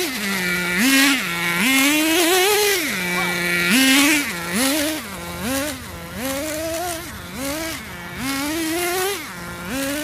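Radio-controlled model car's motor revving up and down over and over, its pitch rising and falling about once a second over a hiss.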